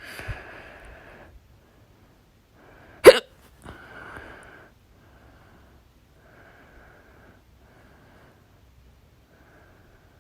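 Hiccups: one loud, sharp hiccup about three seconds in and a fainter one at the very start, each followed by a breathy exhale, then quieter breaths every second or so.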